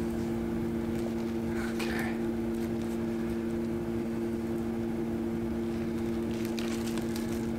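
A steady electrical hum made of a few fixed tones, with faint rustling and crinkling of packing and a plastic cup being handled about two seconds in and again near the end.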